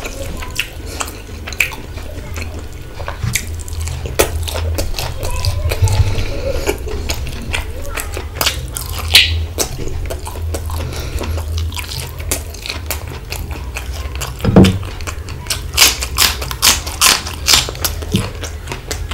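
Close-up eating sounds: wet chewing and lip-smacking of mouthfuls of rice and mutton curry, with the squelch of fingers mixing rice into the gravy. Many short wet clicks over a steady low hum, with one louder knock about three-quarters of the way through.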